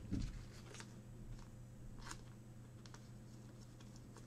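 Quiet room tone with a steady low hum, a soft thump right at the start and a few faint scattered clicks and rustles.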